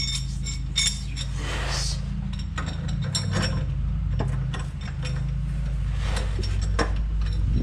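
Hand tools working subframe bolts: ratchet clicks and metal-on-metal clinks in short, irregular bursts over a steady low hum.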